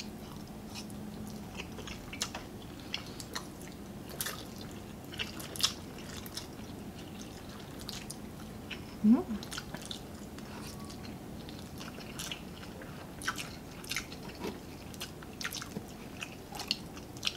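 Close-miked eating sounds: two people chewing and slurping spaghetti carbonara, with many short wet clicks scattered throughout. A brief rising vocal sound comes about nine seconds in.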